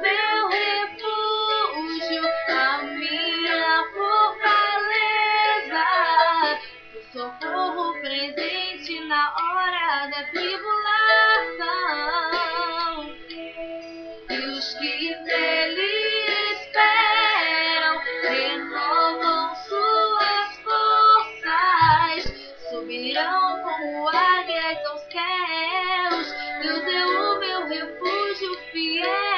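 A woman singing a Portuguese worship song over instrumental accompaniment, with held notes and wavering, ornamented runs in her voice.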